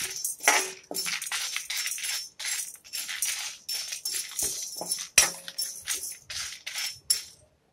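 Dry split lentils and dried red chillies rattling and scraping in a bare metal pan, stirred with a metal ladle in quick irregular strokes while they dry-roast. The stirring stops shortly before the end.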